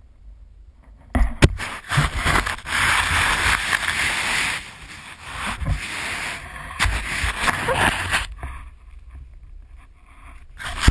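Snow scraping and crunching against the camera's housing, a rough rubbing noise with a few knocks, starting about a second in and dying down near the end.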